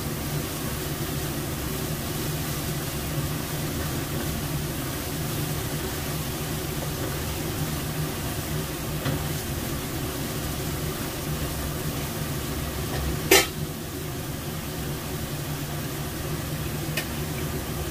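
Blended chili balado paste sizzling in a wok as it is sautéed and stirred with a spatula, over a steady low hum. One sharp clack, louder than anything else, about two-thirds of the way through.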